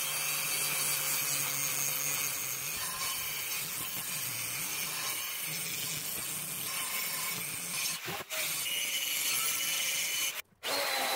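Electric angle grinder running under load against the edge of half-inch-thick steel angle iron, a steady grinding hiss as the edge is trued to a square 90°. It dips briefly about eight seconds in and cuts out for a moment near the end.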